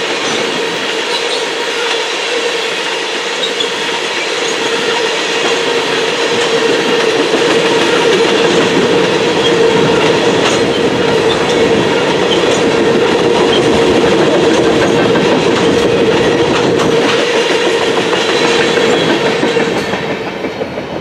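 Freight train tank cars rolling past, their wheels running over the rails, with a steady whine under the rumble. The sound falls away near the end as the last car passes.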